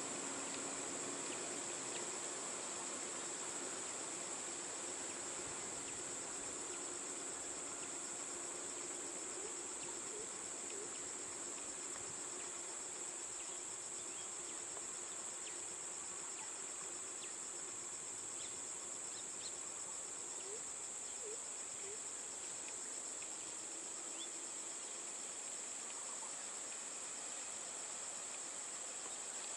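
Steady high-pitched drone of insects, a rapid continuous trill, with a few faint short chirps scattered through it.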